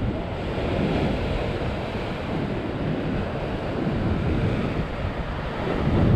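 Wind buffeting the microphone over the steady wash of sea surf on rocks, swelling and easing.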